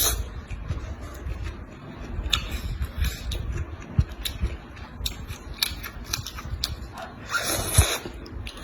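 Close-miked eating sounds: wet chewing with many small mouth clicks, and one louder noisy burst lasting under a second near the end.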